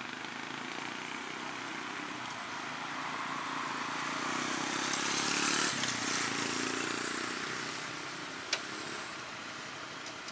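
A motor vehicle passing by: its engine and road noise grow louder, the engine note drops as it passes about halfway through, and then it fades away. A single sharp click comes near the end.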